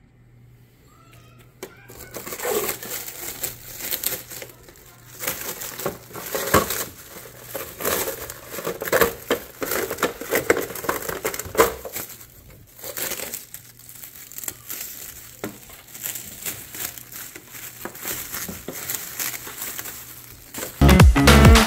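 Clear plastic wrap crinkling and rustling in irregular bursts as it is pulled off a new RC truck. Electronic dance music cuts back in near the end.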